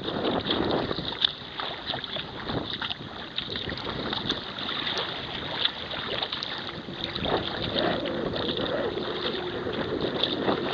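Wind buffeting the microphone over water splashing and lapping against a kayak being paddled through light wind chop, with scattered short splashes from the paddle. A faint steady hum comes in about halfway through.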